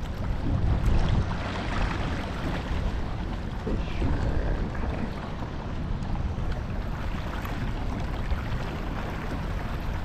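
Wind rumbling on the microphone over water washing along the hull of a rowing eight, with a couple of rowers taking light strokes and small clicks now and then.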